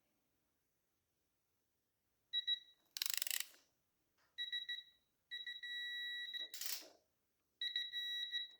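A digital torque wrench beeping as the triple clamp bolts are tightened to the set 12 newton meters, signalling that the target torque has been reached. There are four steady high beeps, one held about a second, with two short rasping noises between them.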